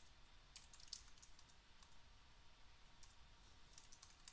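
Faint typing on a computer keyboard: scattered quick keystroke clicks, some in short runs, over near-silent room tone.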